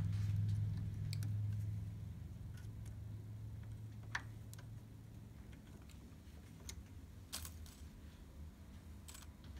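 Scattered small clicks and taps of thin-nose pliers and a new needle against the needle bars of a multi-needle embroidery machine, about five sharp ones. A low hum fades away over the first two seconds.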